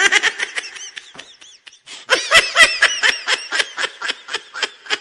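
A person laughing in a fast run of short "ha" pulses that thins briefly about two seconds in, then picks up again.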